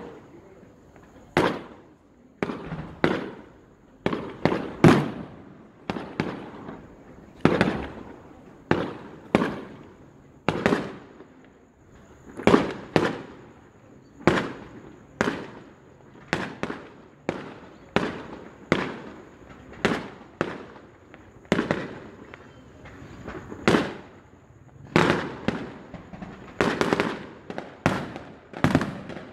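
Fireworks display: aerial shells bursting in a steady string of sharp bangs, roughly one a second, each trailing off in an echo.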